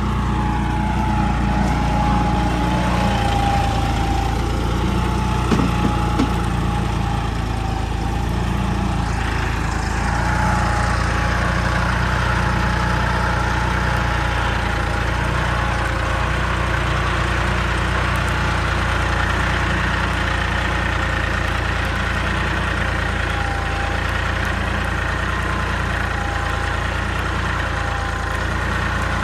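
John Deere 5310 tractor's three-cylinder diesel engine running steadily under load as it pulls a mouldboard plough through the soil. A couple of brief knocks come about six seconds in.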